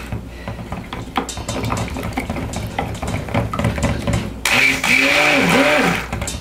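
Stick blender in a pitcher of soap oils mixed with rose clay: a few seconds of faint knocks and clicks with the motor off, then the motor pulsed on for about a second and a half near the end, its whine rising and dipping as it speeds up and slows.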